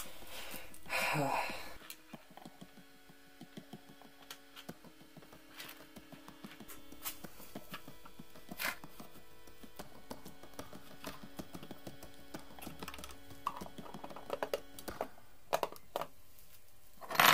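Small clicks and taps of 3D-printed plastic parts and metal hardware being handled and fitted together, with a louder cluster of clatter near the end. Soft background music with long held notes runs underneath.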